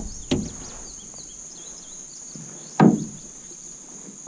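Two knocks in a jon boat, a small one just after the start and a louder one near three seconds in, over a steady high insect drone.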